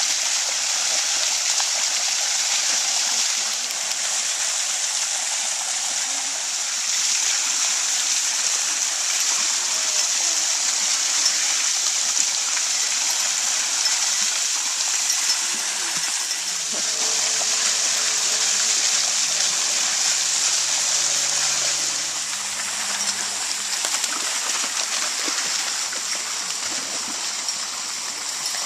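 Water gushing and spilling from a pipe standpipe into a shallow creek: a steady rushing splash, with dogs wading through the water. A faint low drone joins about halfway in.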